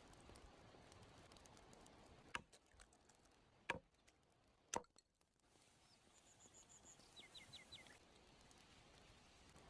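Near silence, broken by three faint sharp taps a little over a second apart about two to five seconds in, and a few faint high chirps later on.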